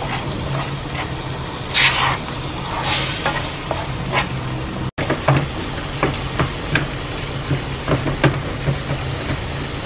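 Spiced tomato-onion masala with butter sizzling and frying in a pan, cooking down until the butter separates out as oil. A wooden spoon stirs and scrapes it, with a run of small scraping taps in the second half. The sound cuts out for an instant about five seconds in.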